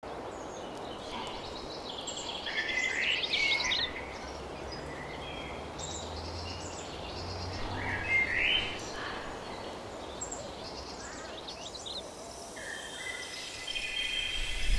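Forest ambience: a steady hiss with scattered bird chirps, the loudest flurries about three seconds in and again around eight seconds. A steady high tone comes in near the end.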